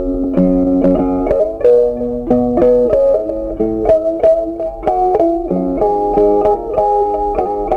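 Background music: a plucked guitar playing a steady melody of sharply struck, ringing notes.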